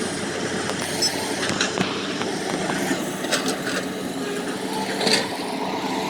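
Excavator engine running steadily, with a few short knocks scattered through it.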